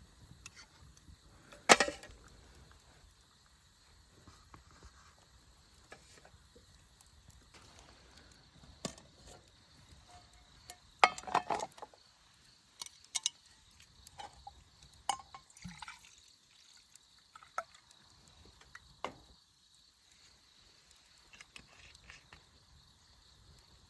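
Scattered sharp clicks and knocks, the loudest about two seconds in and a dense cluster around eleven seconds, over a faint steady background hiss.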